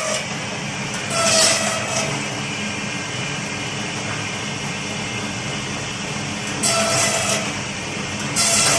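Bamboo slicer-planer machine running with a steady motor hum. A louder rasping cut sounds about a second in, again near seven seconds and at the end, as bamboo strips are fed through the blades.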